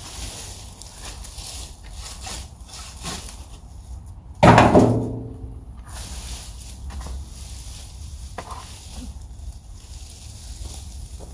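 Rake and shovel scraping through pine straw and forest-floor debris, loading it into a wheelbarrow in repeated short strokes. About four and a half seconds in comes one loud metallic clang, a tool striking the wheelbarrow's metal tub, ringing for about a second before it fades.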